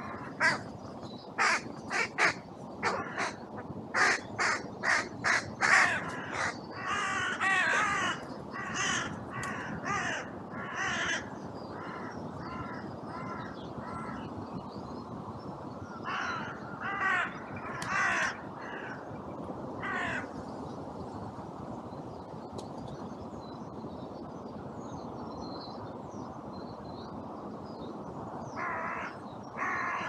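Carrion crows cawing: many quick harsh caws through the first ten seconds or so, another group a little later, then a long pause before a few more caws near the end, over steady wind noise.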